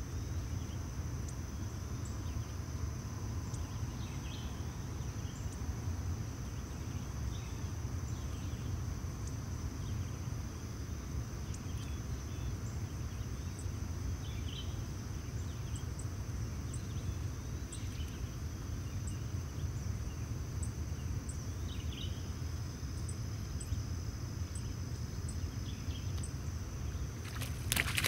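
Insects keep up a steady high-pitched drone over a constant low rumble, with scattered short chirps. Near the end there is a sudden loud splash in the shallow water at the bank's edge.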